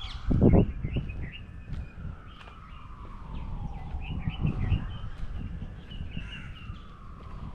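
Birds chirping in short, scattered calls, over a faint background tone that slowly rises and falls in pitch twice. Low thuds come through about half a second in and again around four and a half seconds, the loudest thing heard.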